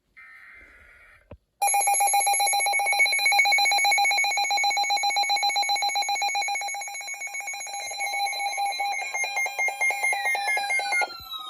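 Emergency Alert System two-tone attention signal, a harsh steady alarm tone with a fast warble, sounding for about nine seconds from a second and a half in and announcing a new emergency alert. Near the end a falling tone glides down into a steady single tone.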